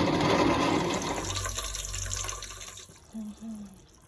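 Rushing water, like a tap or flush, that fades out over about three seconds, followed by two short low hums.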